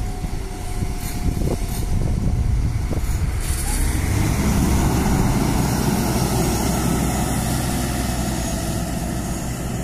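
VDL Citea city bus pulling away from a stop: its engine noise swells about three to four seconds in as it accelerates, then eases off as the bus drives away.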